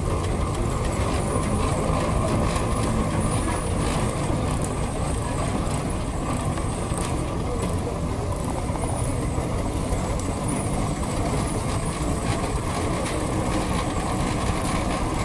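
1931 Vølund Senior steam roller on the move: a steady mechanical rumble from its engine and rolling wheels, with light irregular clicking and a faint high hiss.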